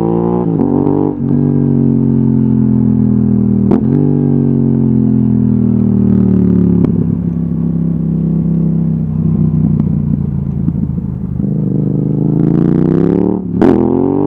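Yamaha XSR700's 689 cc parallel-twin running through an Akrapovic exhaust while riding, its pitch rising and falling with the throttle. There are a few short breaks with clicks, and a sharp rise in revs near the end.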